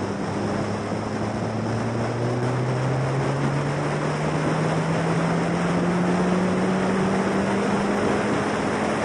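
The 1.6-litre Ford Duratec four-cylinder engine of a Formula Silverstone single-seater running under load. Its note rises slowly and steadily as the car accelerates, then levels off near the end, over a constant rush of wind noise.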